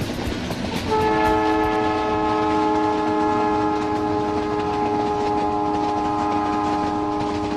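Train horn starting about a second in and held as one long chord of several tones, its pitch sagging slightly, over the steady rumble of the moving train.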